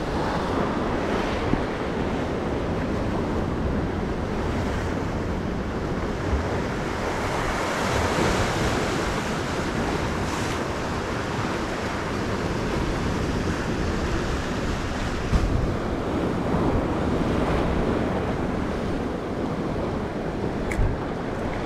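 Ocean surf washing and breaking against coastal rocks: a steady rushing wash that swells and eases, with wind buffeting the microphone.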